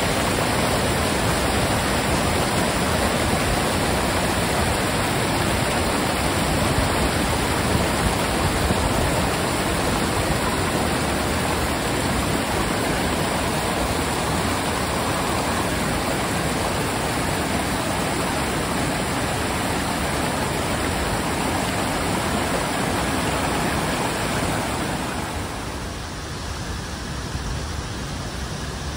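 River water rushing over rocky cascades and small falls, a steady white-water rush. About 25 seconds in it becomes quieter and duller.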